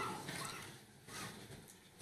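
Quiet room tone in a large hall, with a few faint soft rustles or shuffles, the first about half a second in and another just after a second.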